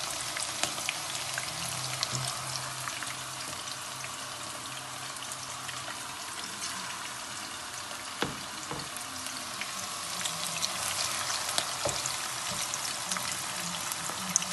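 Thin mutton kebabs deep-frying in melted ghee: a steady sizzle of tiny crackling pops, with a few sharper clicks now and then.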